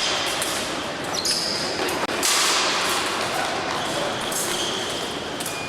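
Echoing sports-hall ambience at a fencing competition: indistinct background voices, with scuffing and thudding of fencers' feet on the piste.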